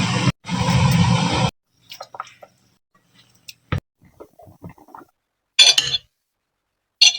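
Kitchen preparation sounds. A steady hiss stops abruptly about a second and a half in, then come scattered light taps and clinks of utensils and dishes, with a sharp click near the middle and two brighter clinks towards the end.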